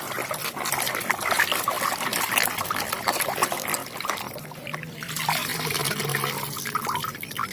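Water splashing and trickling as muddy toy vehicles are rinsed and scrubbed, with many small clicks and knocks of plastic in the water.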